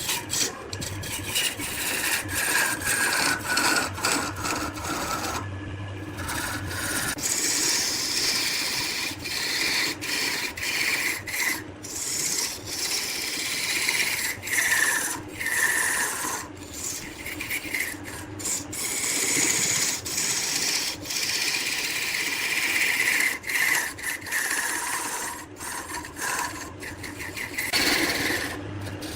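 Wood spinning on a lathe and being worked with a tool: a continuous scraping hiss that rises and falls as the tool moves, broken by frequent short gaps.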